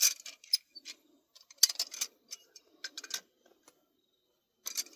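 Light metallic clicks and knocks in several short clusters from a new helical pump rotor being worked in and out of its stator by hand, showing the free, loose fit a healthy rotor should have.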